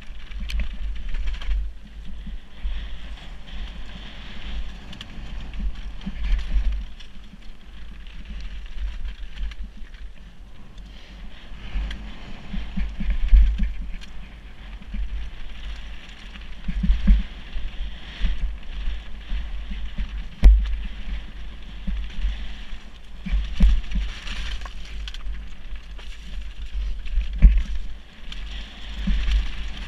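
Mountain bike riding fast down a loose rocky trail: tyres crunching and rattling over stones, with wind buffeting the action camera's microphone. Sharp knocks from hard hits on rocks come irregularly, the loudest about twenty seconds in.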